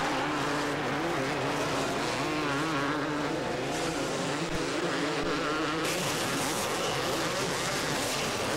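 Two-stroke motocross bikes racing, several engines revving up and down over one another as the riders work the throttle.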